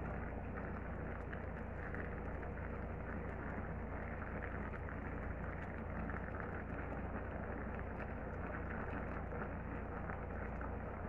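Pechay in coconut-milk sauce simmering in a stainless-steel pot over a gas burner: a steady hiss of bubbling and flame with faint scattered crackles.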